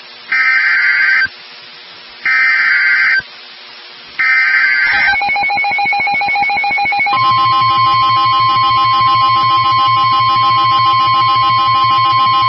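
NOAA Weather Radio emergency alert: three roughly one-second bursts of screeching digital SAME header data with short gaps between them, then the long steady Warning Alarm Tone, which begins about five seconds in and grows fuller and buzzier about two seconds later. It signals that a warning, here a severe thunderstorm warning, is about to be broadcast.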